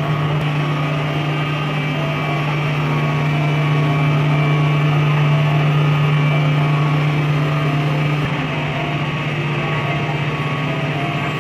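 A machine running with a steady, droning low hum, easing slightly in level about eight seconds in.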